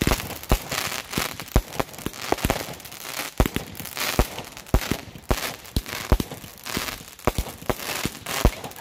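Consumer multi-shot fireworks cake firing: an irregular string of sharp bangs, about two or three a second, with crackling between them from the bursting stars.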